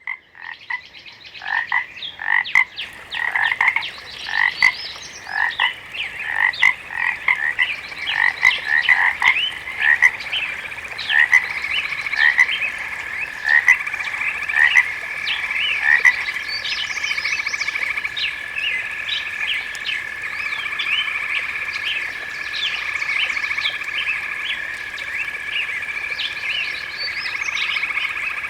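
Frog chorus: many frogs calling in short, quick, overlapping calls, with a steady trilling drone building up beneath them after about ten seconds.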